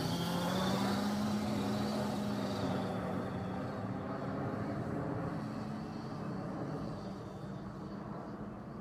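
Losi Mini WRC radio-controlled rally car's motor whining as it drives, the pitch wavering with the throttle, over tyre and surface noise; it slowly fades in the last few seconds as the car moves off.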